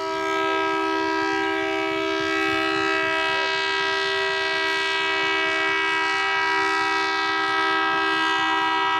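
Steam locomotive whistle giving one long, steady blast of several tones sounding together as a chord, which cuts off sharply near the end.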